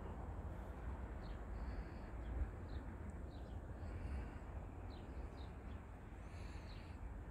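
Small birds chirping, short high calls repeated every second or so, over a low steady rumble of outdoor background noise.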